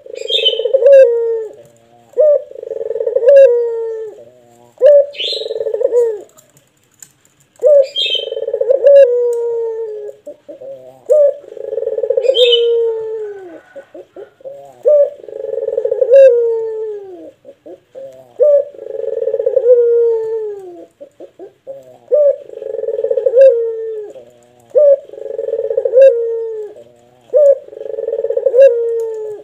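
Puter (Barbary dove) cooing over and over in a deep, long-drawn call, each coo ending in a falling slur, about every two seconds with one short pause. A few short, sharp high notes cut in during the first half.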